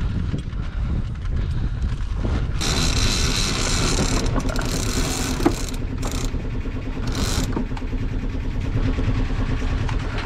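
Sailboat's engine running steadily with a low rumble and hum, while several bursts of hiss come and go in the first half.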